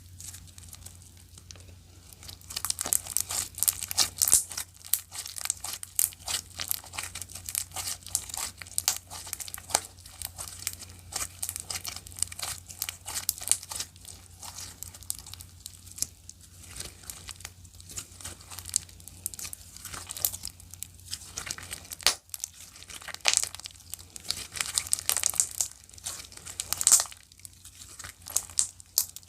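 Clear slime being squeezed, stretched and pressed by hand, giving dense crackling and popping clicks that start about two seconds in.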